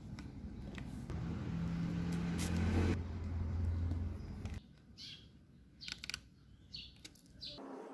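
A low, steady engine hum that grows louder, then stops abruptly about four and a half seconds in; a few faint short clicks or chirps follow.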